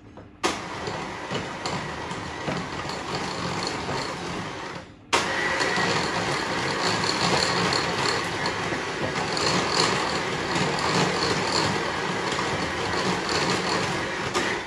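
Bosch electric hand mixer running, its beaters whipping a soft butter mixture in a glass bowl. It starts about half a second in, cuts out briefly near five seconds, then runs on louder.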